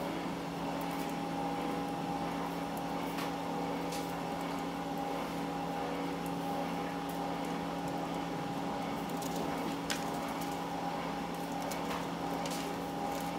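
Steady hum of a jakoten conveyor fryer's machinery over an even hiss, with a few light clicks now and then.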